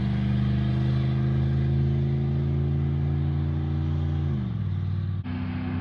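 Service truck's engine running straight-piped, its muffler cut off, with a steady exhaust drone. The note drops in pitch about four and a half seconds in, then breaks off suddenly and a new steady note takes over.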